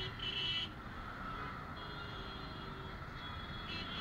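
Suzuki Gixxer's single-cylinder engine running under dense road-traffic noise as the motorcycle creeps away from a standstill. A brief high steady tone sounds during the first half second.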